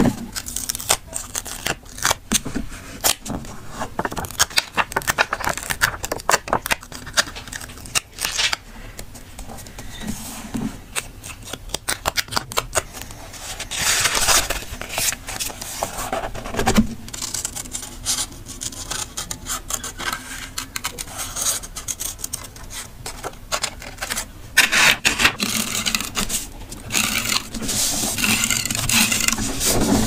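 Close-up paper and sticker handling on a spiral-bound journal: quick fingertip taps and clicks, then fingers scraping and rubbing stickers and patterned paper flat onto the page, with a soft knock as the notebook is handled midway.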